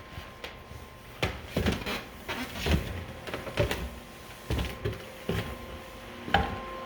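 Irregular knocks and thumps, about a dozen spread over several seconds, over a faint steady tone.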